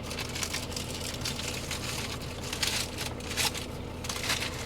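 Irregular crinkling and rustling from handling a fast-food chicken sandwich and its wrapper, over a steady low hum.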